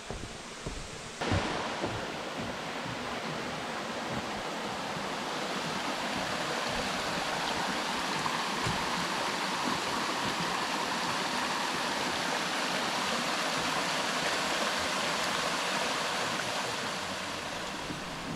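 Steady rushing of water from a cascading bush stream, coming in suddenly about a second in, growing louder through the middle and easing off near the end.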